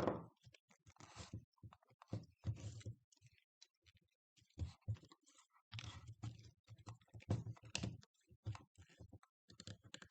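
Irregular clicks, taps and short scrapes of a hand tool prying and working at a lithium-ion battery pack's plastic case and cell connections.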